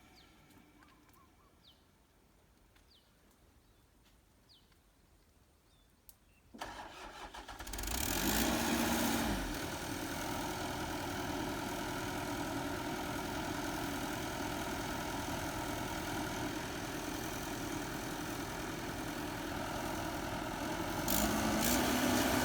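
Near silence with a few faint chirps, then about six and a half seconds in a heavy machine's diesel engine starts and settles into steady running, growing louder near the end.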